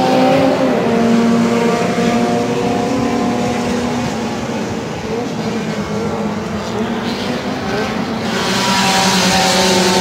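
Cars lapping a racing circuit at speed: one engine note sinks and fades as a car goes away, then another car approaches and grows louder about eight seconds in.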